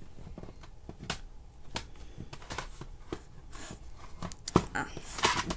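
CD cases being handled: scattered plastic clicks, taps and rustling, busiest near the end.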